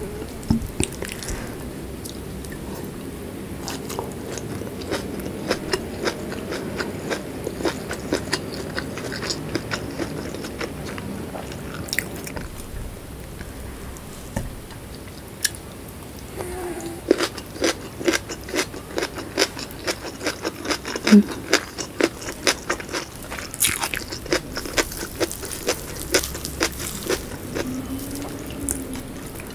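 Close-miked chewing and biting of whole shallots in sambal, with crisp crunches and wet mouth clicks that come thicker in the second half.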